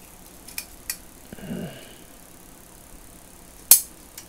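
Steel groove joint pliers handled in gloved hands: a few light metal clicks, a brief muffled rub about a second and a half in, then one sharp, loud metal click near the end.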